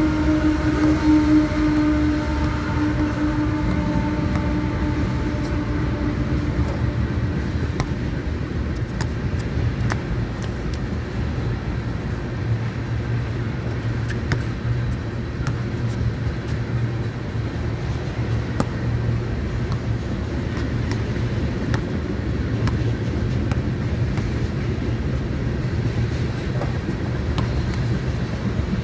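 A train rolling past: a steady low rumble with scattered sharp clicks. A humming tone with overtones fades away over the first six seconds or so.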